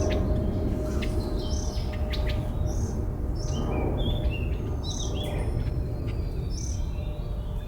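A bird chirping over and over in short, high clusters of a few notes, about one cluster a second, over a steady low rumbling background noise.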